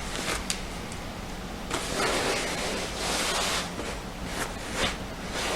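Flex Seal aerosol can spraying liquid rubber in short hissing bursts, the longest about two seconds in, with a few sharp clicks between them.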